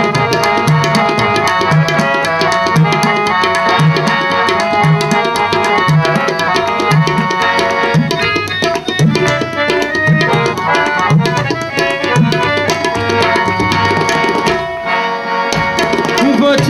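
Instrumental interlude of a Masihi geet (Urdu Christian worship song): tabla keeping an even beat about twice a second under a harmonium melody. The drums drop out briefly near the end.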